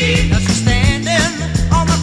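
1970 rock band recording in an instrumental passage: a steady drum beat and bass line under a lead line of bending, wavering notes.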